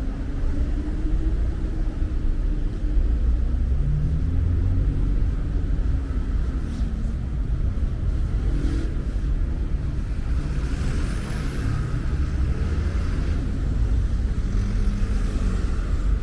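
Steady low rumble of a motor vehicle engine, with a wavering engine hum over it.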